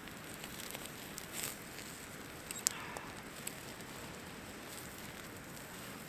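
Steak sizzling on a wire grill rack over a crackling wood fire, with a few sharp clicks as metal utensils turn the meat on the rack; the loudest click comes about two and a half seconds in.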